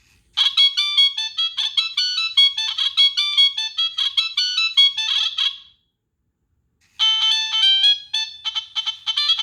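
Preloaded ringtones on a Nokia 3588i mobile phone: a quick electronic melody of short notes plays through the phone's small speaker and stops about five and a half seconds in, then after a silence of over a second the phone starts playing again.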